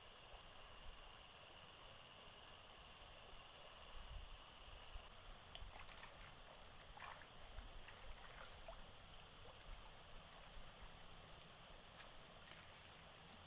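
Insects chirring steadily in a high, even drone, over a low rumble, with faint small water sounds in the middle.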